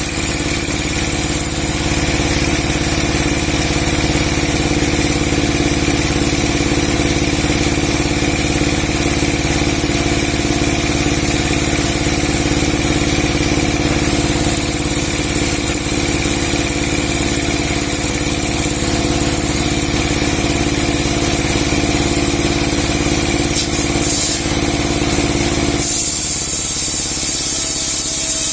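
A large 30 hp log-sawing machine with a 60 cm steel blade running steadily with a constant hum. About two seconds before the end, the hum changes and a higher hiss comes up.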